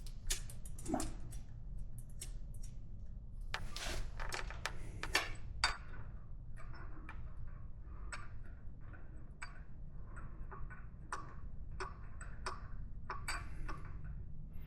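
Hand tools working on a motorcycle's rear chain adjusters: irregular metallic clicks and ticks, coming in quicker runs in the second half.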